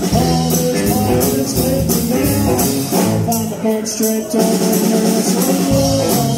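Live rock band playing loudly: electric guitars, bass and drum kit with a shaken tambourine, and a woman singing.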